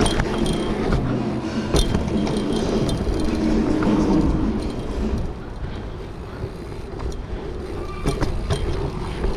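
Mountain bike tyres rolling over packed dirt jumps, with wind buffeting the camera microphone as the bike moves. A few sharp knocks come from the bike and rider landing and riding through the jumps, and the noise eases a little about halfway through.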